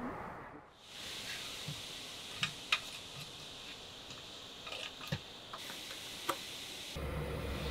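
Light metallic clicks and taps of a teaspoon against a stainless moka pot's filter basket as ground coffee is spooned in, a few sharp clicks over a soft steady hiss. Near the end a steady low hum comes in.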